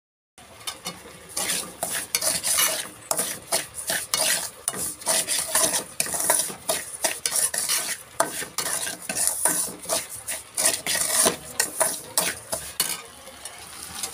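Metal ladle stirring and scraping in metal cooking pots, dal and then semolina roasting for halwa, with rapid irregular clinks and scrapes. It eases into a softer, steady sizzle near the end.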